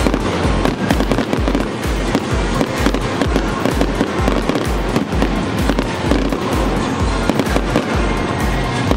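Aerial fireworks display going off: a rapid run of bangs and crackling shell bursts, with music and a steady bass beat playing underneath.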